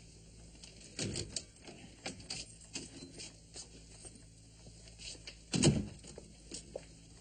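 Scattered small clicks and knocks, then one heavy thump about five and a half seconds in.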